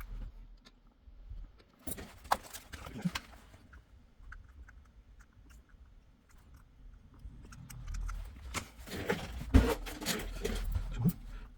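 Scattered clicks, taps and rustling of small objects being handled, busiest about two to three seconds in and again from about eight to eleven seconds in.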